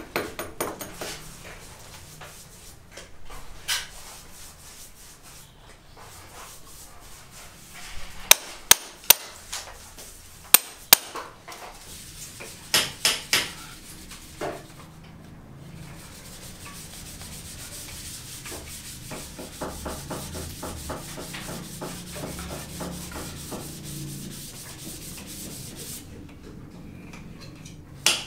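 Hand tool scraping and rubbing along a concrete beam, with sharp knocks scattered through, several in quick succession about a third of the way in. In the second half the scraping runs on steadily.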